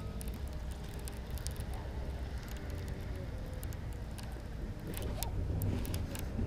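Wind rumbling on the microphone, a little stronger about five seconds in, over faint scattered clicks and ticks from a baitcasting reel being cranked to retrieve a lure.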